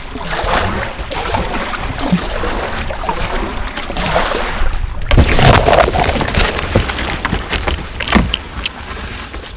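Kayak being paddled on a small river: paddle splashes and short knocks against the hull, loudest about halfway through.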